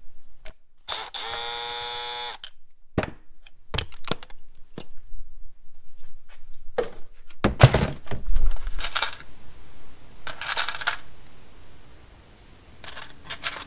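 A small cordless drill-driver runs for about a second, then the clicks and knocks of hard plastic speaker brackets and connectors being handled, with the heaviest knocks about halfway through. A few short scraping rustles follow near the end.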